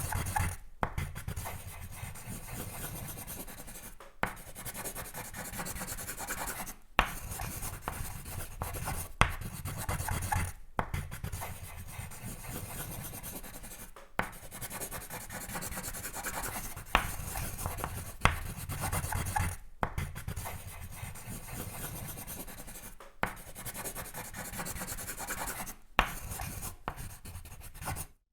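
Sketching on paper: scratchy drawing strokes rubbing across the sheet, broken by short pauses every few seconds, with a sharp tick as the tool touches down at the start of several strokes.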